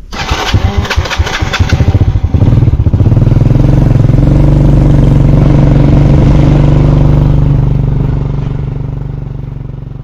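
An old motorcycle engine is started: a couple of seconds of uneven firing as it catches, then it settles into a steady run. It grows quieter over the last two seconds.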